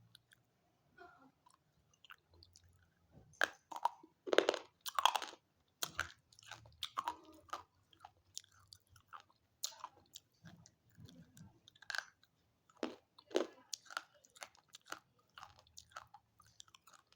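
A person biting and chewing brittle chalky pieces close to the microphone: irregular sharp crunches, loudest in a quick run about four to five and a half seconds in.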